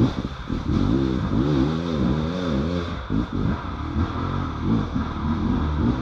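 Off-road vehicle engine revving up and down, its pitch rising and falling in quick repeated swells as the throttle is worked.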